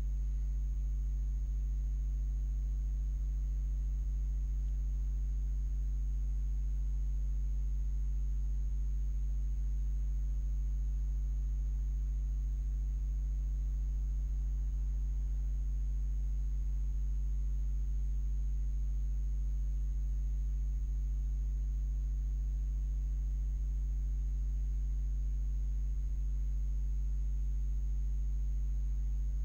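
Steady low electrical mains hum picked up by the recording setup, with a faint high-pitched whine above it and a few faint ticks now and then.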